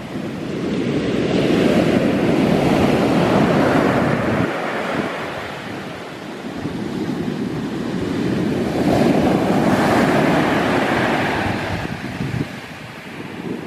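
Heavy sea surf: large waves breaking and washing in, the rush swelling and easing twice, with wind on the microphone.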